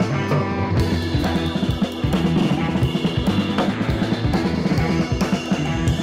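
Background music: a rock track with drum kit and guitar, with a steady beat.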